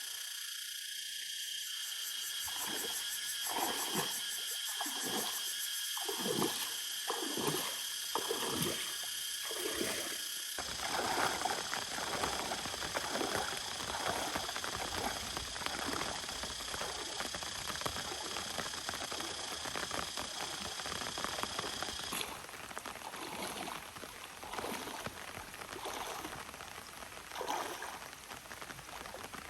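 Water splashing and trickling, with a run of repeated splashes about every second for the first ten seconds, then a steady rushing and dribbling. A steady high-pitched whine runs over it and stops about two-thirds of the way through.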